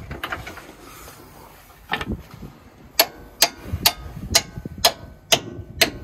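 Hand ratchet running in a bolt on a driveshaft's fittings: sharp metallic clicks about twice a second, starting about two seconds in.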